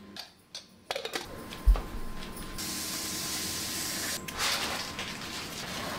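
A knife peeling the skin off ash gourd: a long, steady scraping hiss as the blade slides along the rind, then a shorter scrape, with a low knock shortly before.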